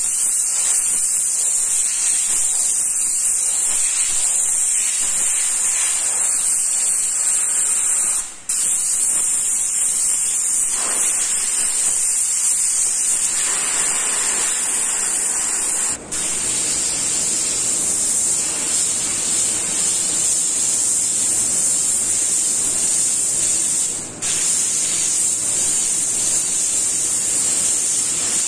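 Airbrush spraying paint, a steady high hiss of compressed air through the nozzle, broken by three brief gaps about eight seconds apart. A faint low hum joins about halfway through.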